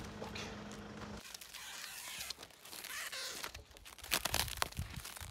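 Plastic stretch wrap crinkling and tearing as it is cut with scissors and pulled off a tabletop, in irregular rustles with several sharp rips and snips in the second half. For about the first second there is a steady low hum.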